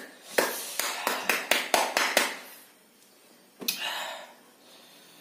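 Hands clapping quickly, about nine sharp claps in the first two seconds, with breathy gasps between them, then a short hissing breath a little over three and a half seconds in: a reaction to the burn of ghost-pepper chili in the mouth.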